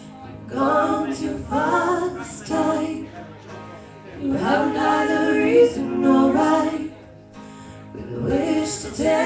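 Female voices singing a song live, in sung phrases of a few seconds each with short breaks between.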